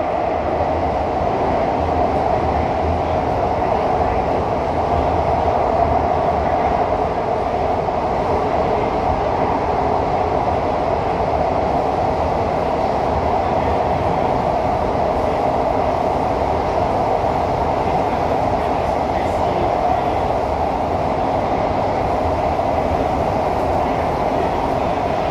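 Cabin noise inside a CT251 metro train running along the line: a steady rumble of wheels on rail and traction hum with a constant mid-pitched rolling tone, unchanging throughout.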